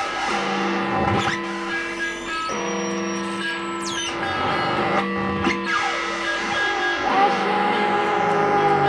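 Live experimental noise music: layered sustained drones with a low repeating figure recurring about every two seconds and several sliding pitch sweeps, at a steady loud level.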